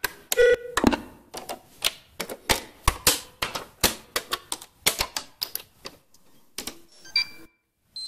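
Rapid, irregular run of sharp mechanical clicks from switches and buttons being flicked and pressed, two to three a second. A few brief electronic beeps sound near the end, then it cuts off.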